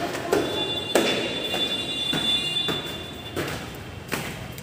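Footsteps on a hard floor and concrete stairs: several separate thuds spaced irregularly. A steady high-pitched tone sounds for about two seconds in the middle and then stops.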